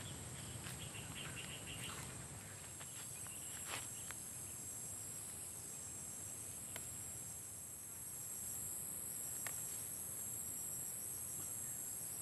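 Steady high-pitched insect chorus, a continuous shrill drone with a fainter pulsing trill beneath it, broken by a few faint sharp snaps.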